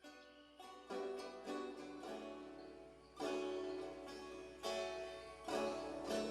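Background music: plucked-string notes, guitar-like, played at an easy pace.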